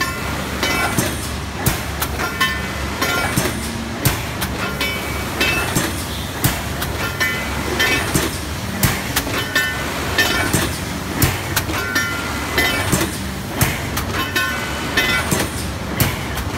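TTF-520AF plastic thermoforming machine running as it forms PET containers with holes. It makes a steady mechanical din, with frequent sharp clacks and knocks from its press stations, one to three a second at uneven spacing.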